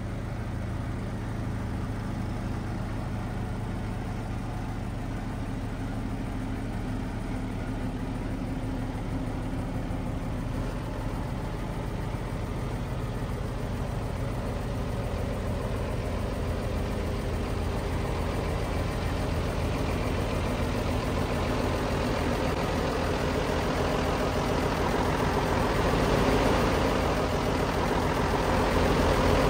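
Mercedes-Benz Unimog truck's diesel engine idling soon after a cold start, a steady low drone that grows louder over the last ten seconds.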